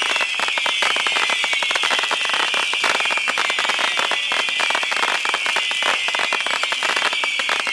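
A steady, high-pitched chorus of night insects, swelling and fading slightly about once a second, with dense rapid crackling throughout.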